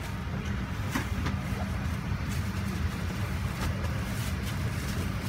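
Steady low cabin hum inside a Boeing 737-800 airliner, with a few faint clicks over it.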